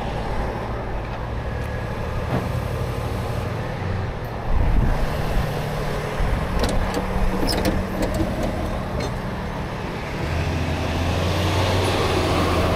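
Truck engines idling close by, a steady low hum. It swells louder about four and a half seconds in and again near the end, with a few sharp clicks in between.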